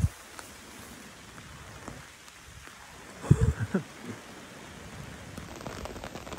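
Light rain falling on vegetation: a steady hiss with scattered drop ticks that grow more frequent near the end. A short cluster of loud low thumps about three and a half seconds in.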